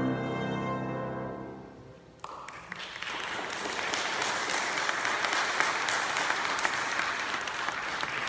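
Viola and piano hold a final chord that fades away, then applause breaks out about two seconds in and continues steadily.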